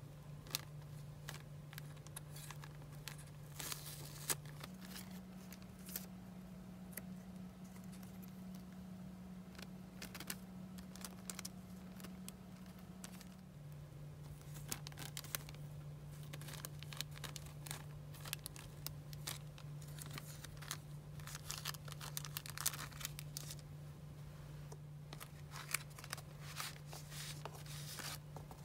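Clear plastic bags and paper die-cuts being handled: repeated crinkling and rustling with short sharp crackles throughout. A faint steady low hum lies underneath, stepping up in pitch about five seconds in and back down about halfway through.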